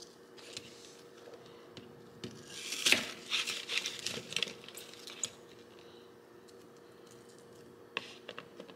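Crinkling and rustling as hands peel and trim onion pieces with a knife on a paper plate scattered with dry onion skins, loudest about three seconds in, with a few small clicks near the end.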